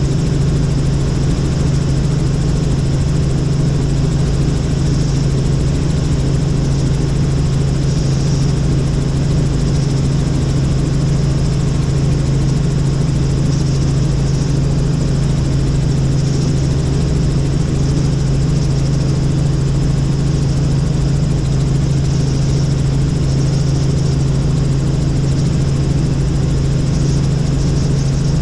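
Helicopter in flight: a loud, steady drone of rotor and engine with a strong, constant low hum.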